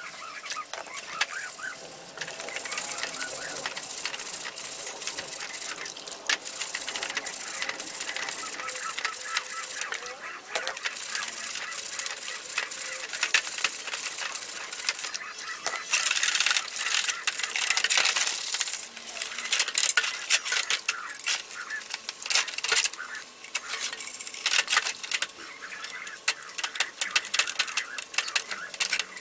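Stiff bristle brush scrubbing metal air compressor parts in soapy water in an aluminium basin, a continuous rasping swish broken by frequent clinks and knocks of the parts against the basin and splashes of water.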